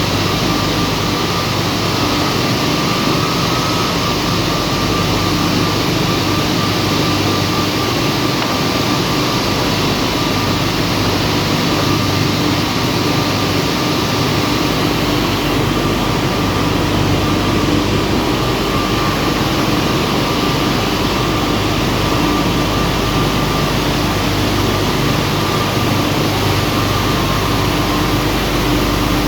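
Marble sandblasting machine running: a steady, loud hiss of blasting air with a constant hum underneath.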